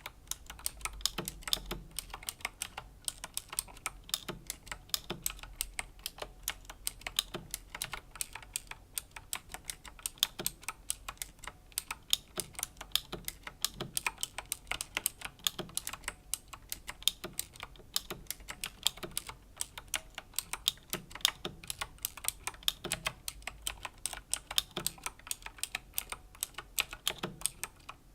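Slow typing on a Razer BlackWidow Chroma V2 mechanical keyboard with Razer Green clicky switches: an unbroken run of sharp key clicks, a few a second.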